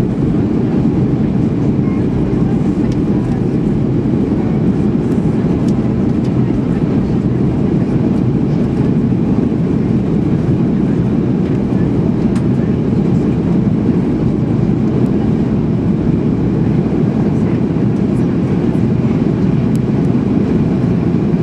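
Steady low cabin drone inside a Boeing 737-800 in flight: engine and airflow noise, unchanging in level.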